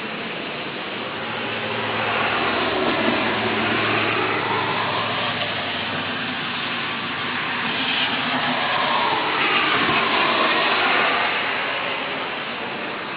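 Tyres hissing on a wet road as two vehicles pass one after the other, each swelling and fading, over a steady background of falling rain.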